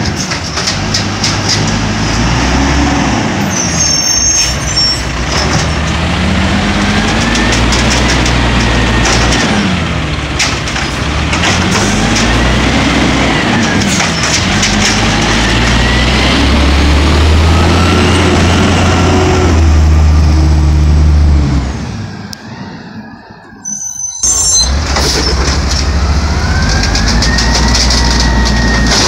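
Diesel engine of an automated side-loader garbage truck, revving up and down again and again, each rise and fall lasting a few seconds, with short hisses of air brakes. Near the end the revving goes with the side arm lifting a cart to dump it into the hopper.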